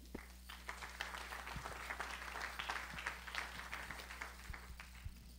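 Applause from a small audience of people clapping, building up about half a second in and dying away near the end.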